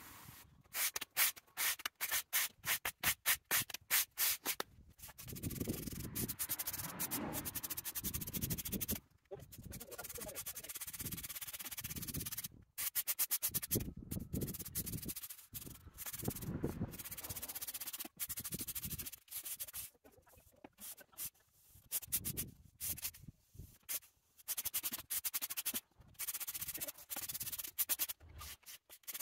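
Stiff polyethylene push broom sweeping sand over concrete block paving, brushing it into the joints between the blocks after pressure washing. The strokes come short and quick for the first few seconds, then as longer sweeps with brief pauses.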